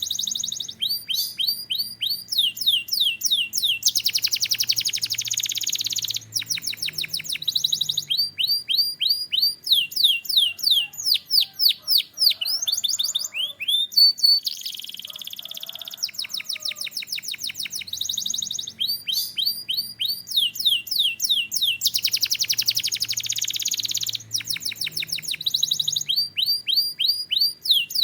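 Domestic canary singing a continuous song: fast runs of repeated, quickly falling whistled notes, alternating every few seconds with dense buzzy rolls.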